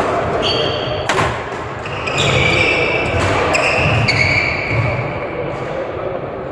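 Badminton play in a sports hall: sharp racket strikes on a shuttlecock, the loudest about a second in, and several shoes squeaking on the court floor, with footfalls and players' chatter from the surrounding courts.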